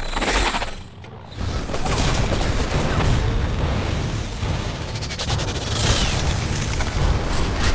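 Film battle sound of heavy gunfire and explosions, with tree trunks splintering under the hits and a deep rumble underneath. It drops away briefly about a second in, then builds back into a dense volley.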